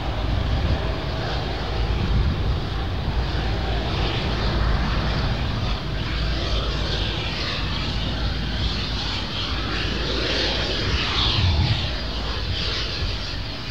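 Boeing 777-200ER's twin Rolls-Royce Trent 895 turbofans running at low taxi power as the airliner rolls slowly toward the runway: a steady jet noise over a low rumble.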